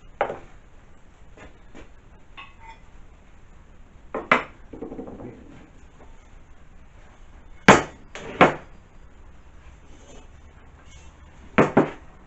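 Metal parts such as aluminium billets and bearings being set down or handled on a workbench: about six sharp clunks and clinks, the last four in two close pairs.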